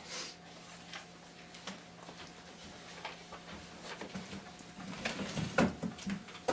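A person moving about close to a microphone: scattered soft clicks, knocks and rustles over a faint steady hum, growing denser and louder about four seconds in, with the loudest knock a little after five seconds.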